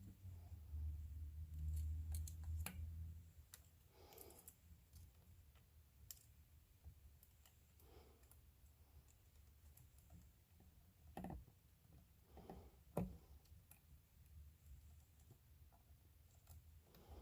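Faint, scattered small clicks and taps of hands handling tools and wires while soldering, with a few louder taps about eleven to thirteen seconds in. A low hum sounds for the first three seconds.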